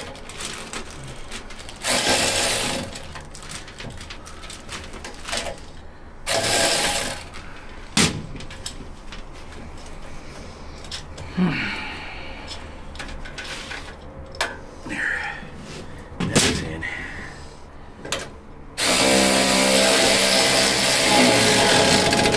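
Handheld power driver running nuts onto bolts on a steel tool cart. It runs in two short bursts and then in one longer run of about three seconds near the end, with clinks and knocks of metal parts in between.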